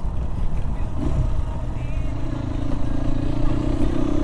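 GR7 dirt bike's engine running under way, a steady low rumble mixed with wind on the microphone. A steady droning tone joins about two seconds in and holds.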